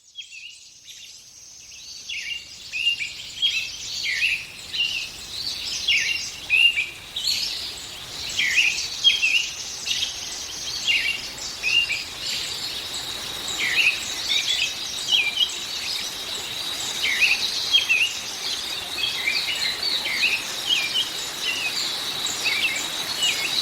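Several birds chirping and singing in quick, overlapping short calls, fading in over the first couple of seconds above a steady background hiss. A steady high tone joins about a third of the way in and holds under the birdsong.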